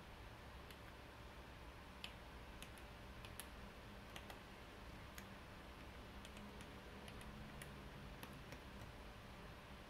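Keys of a homemade calculator keypad with Gateron Yellow linear mechanical switches being pressed in an irregular run of faint clacks as numbers are keyed in.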